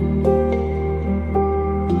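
Background music in a calm new-age style: a steady low drone with ringing notes struck a few times over it.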